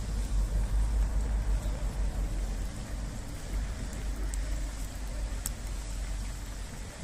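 Cubes of pork fat rendering into cracklings in a cast-iron cauldron over a wood fire: a steady bubbling sizzle with a few sharp pops about four and five and a half seconds in, all over a low rumble.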